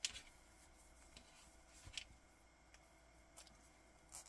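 Faint handling sounds of a steel watch on a leather strap being picked up and buckled onto a wrist: a sharp click at the start, another about two seconds in, and a few light ticks.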